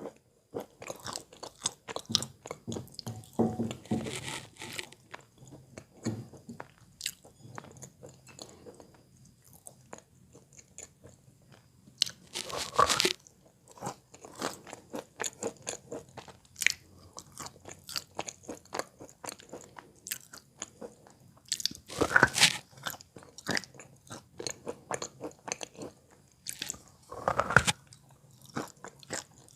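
Close-miked dull crunching and chewing of wet Belogorye chalk: a steady run of small crackles as it is chewed, with three louder bites, about halfway through, around two-thirds of the way in and near the end.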